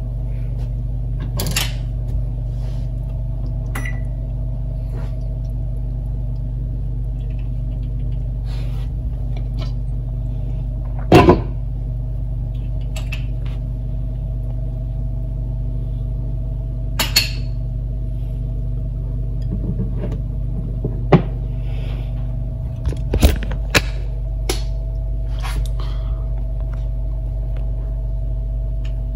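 Steady hum of a kitchen appliance's motor running, with a few scattered light clicks and knocks on top, the loudest about eleven seconds in and a small cluster near the end.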